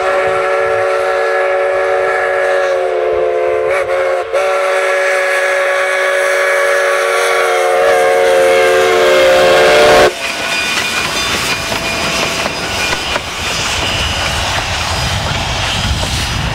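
Steam chime whistle of narrow-gauge 2-8-2 K-36 locomotive 488 blowing one long steady blast of several notes at once, cut off sharply about ten seconds in. The locomotive then runs light down the track with a rough clatter and a low rumble that grows toward the end.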